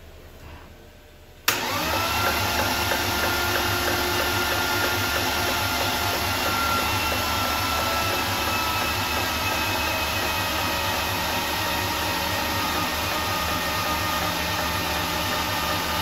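Starter motor cranking a freshly built BMW M52B30 stroker straight-six with its spark plugs still out, kicking in suddenly about a second and a half in and spinning the engine over at an even, steady speed without it firing. During these cranks the builders heard a faint kind of knocking noise that they could not place.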